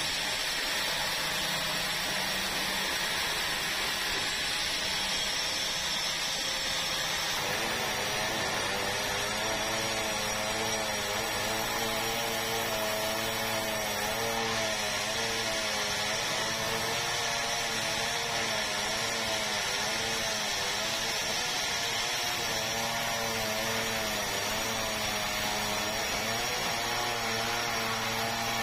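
Sawmill saw running and cutting red meranti timber: a steady, loud machine rush, joined about eight seconds in by a wavering motor hum.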